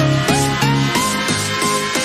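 Upbeat electronic dance music with a steady beat, about three beats a second, over a bass line whose notes slide in pitch.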